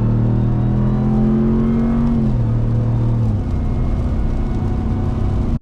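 2021 RAM 1500 TRX's supercharged V8 pulling under acceleration, its note rising slightly and then falling away about two to three seconds in, over steady road noise.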